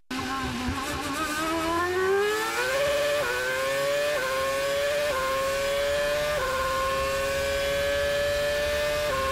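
Ferrari F138 Formula One car's 2.4-litre V8, heard onboard, accelerating hard out of a slow corner. The engine note climbs steadily and drops sharply at each of five quick upshifts, then rises slowly in the top gears.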